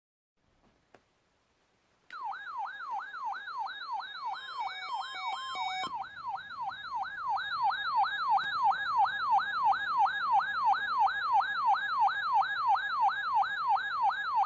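Weather alert radio receiver's alarm siren, set off by the NOAA Weather Radio weekly test of the warning alarm. It starts about two seconds in and wails up and down about three times a second, steadily.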